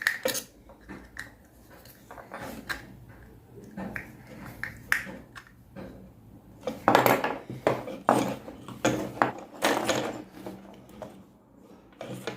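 Irregular clicks, taps and knocks of small plastic and metal electrical parts being handled as a wire is fastened to a bulb holder's terminal, with a busier run of knocks about seven seconds in.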